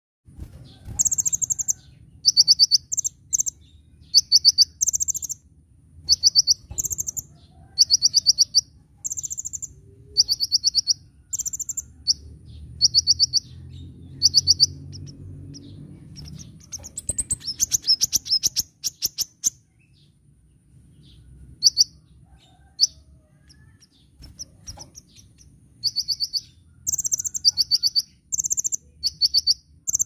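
Male copper-throated sunbird (kolibri ninja) singing. It gives short, very high, fast trills repeated about once a second, with a rapid ticking chatter partway through and a few seconds' pause before the trills resume.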